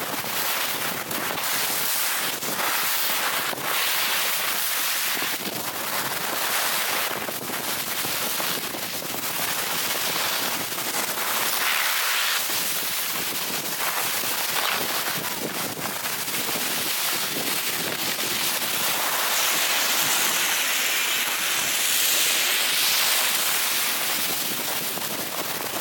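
Skis scraping over icy groomed snow on a fast descent: a dense hiss with crackly surges that rise and fall with the turns, mixed with wind rushing over the microphone.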